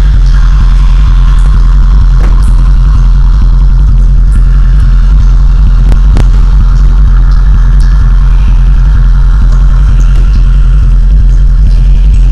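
Loud, steady low rumbling drone with a hazy higher layer and a few faint clicks, the kind of sound score a dance piece plays through stage speakers.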